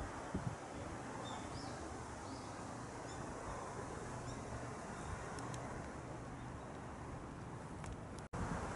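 Steady outdoor background noise with a few faint, short bird chirps in the first few seconds. The sound drops out for an instant near the end, at an edit.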